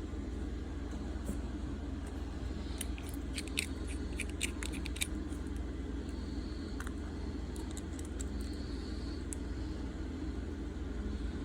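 Small sharp clicks and taps of spring clamps being handled and clipped onto the edges of a phone, bunched about three to five seconds in with a few more later, over a steady low hum.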